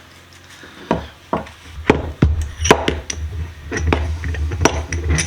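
Sharp metal clicks and knocks, about nine spread irregularly, from handling and working the parts of a restored cast clamp-on vise. A low steady hum comes in about two seconds in.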